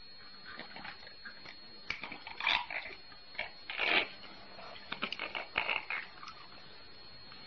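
A cat eating dry food from a plastic bowl: irregular small crunches and clicks, with a few louder short sounds about two and a half and four seconds in.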